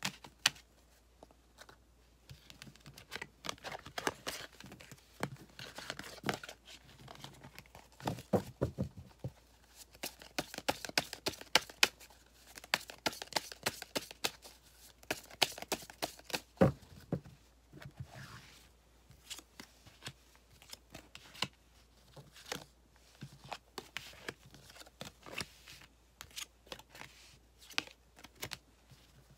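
A deck of tarot cards being gathered, shuffled and spread out by hand on a velvet cloth: an irregular run of papery slides and quick card clicks, with a few duller knocks of the deck against the table.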